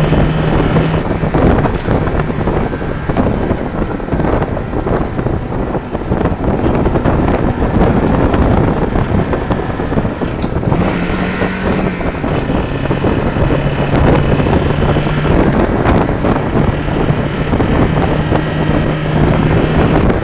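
A 1992 Mazda Miata's 1.6-litre B6 four-cylinder engine running steadily, its note rising for a moment about eleven seconds in, with wind noise on the microphone. The engine has the rod knock that the title names.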